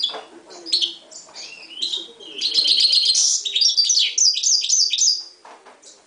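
Himalayan goldfinch mule (goldfinch × canary hybrid) singing: a phrase of quick high chirps and whistles that builds into a loud, rapid trill from about two seconds in and stops a little after five seconds.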